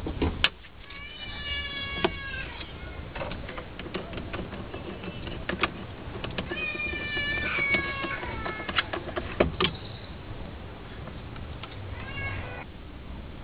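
Hands and tools working on the engine's intake hoses and air duct: scattered sharp clicks and knocks, with three drawn-out squeaky tones, each lasting a second or two and sliding slightly down.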